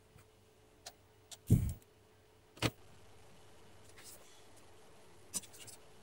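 A few separate clicks and knocks of handling, the loudest a dull thump about a second and a half in, over a faint steady hum.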